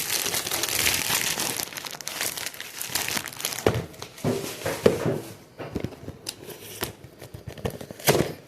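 Packaging being opened: dense crinkling and rustling for about five seconds, then sparser rustles and handling clicks, with one sharp snap near the end.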